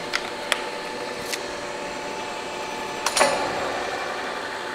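Speed-change levers on a Lodge & Shipley engine lathe's headstock being shifted while the spindle is stopped: a few light clicks, then a single metallic clunk with a short ring a little after three seconds in, over a steady machine hum.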